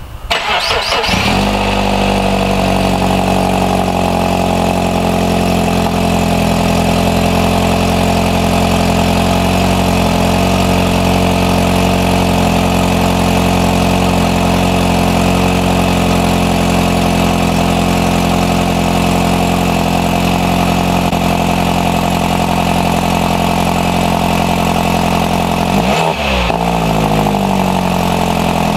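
Mini Countryman Cooper S turbocharged four-cylinder, fitted with a catless downpipe, starting up and then idling steadily through its exhaust. The engine note shifts briefly near the end.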